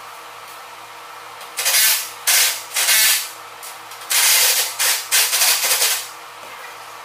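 Six short, loud bursts of harsh, hiss-like noise from a tool cutting into the sheet-metal inner fender of a Jeep CJ7, starting about one and a half seconds in and stopping around six seconds.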